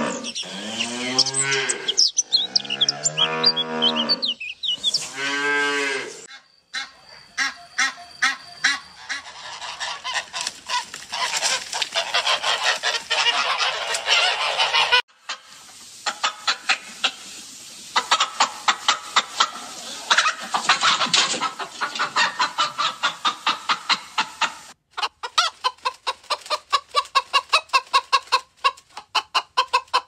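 A Holstein dairy cow mooing, several drawn-out calls of about a second each. Then a flock of farm fowl raising a dense, noisy clamour, followed by chickens clucking in quick, short, repeated notes.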